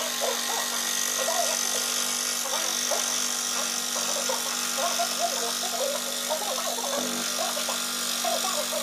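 Porter-Cable scroll saw running steadily, its reciprocating blade cutting through a painted board as the work is fed by hand: an even motor buzz with a hiss on top.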